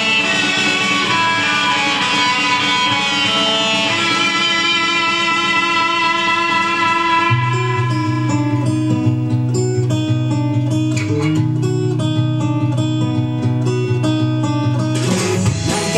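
Recorded song playing through an instrumental stretch led by guitar. A deep, steady bass line comes in about halfway through, and the music fills out near the end.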